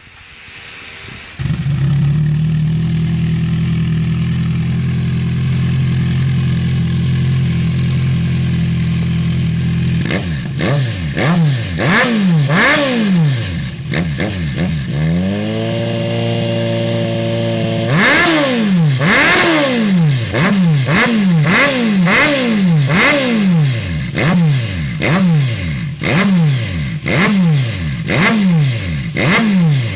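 Kawasaki Z1000's inline-four engine heard through a full stainless-steel aftermarket exhaust system. It idles steadily from about a second and a half in, then is blipped repeatedly, the revs rising and falling about once a second. In the middle it is held for a few seconds at steady higher revs.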